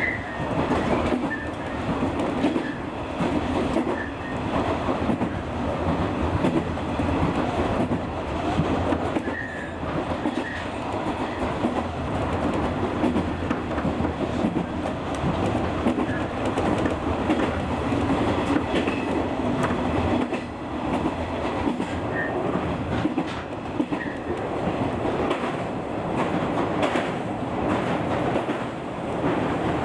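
201 series electric train running, heard from the driver's cab: steady rolling noise with wheels clicking over rail joints every few seconds.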